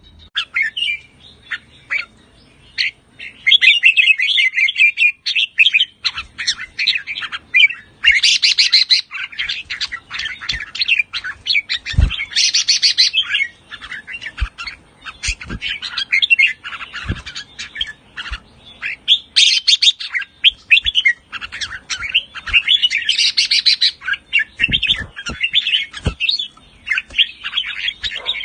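Red-whiskered bulbul singing bursts of phrases mixed with fast runs of chattering notes, with a few short knocks.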